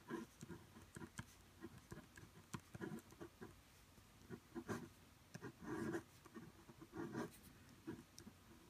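Pilot G2 Limited gel pen writing cursive on card: faint, irregular scratching of the pen tip on the paper, short strokes with a few longer ones as each letter is drawn.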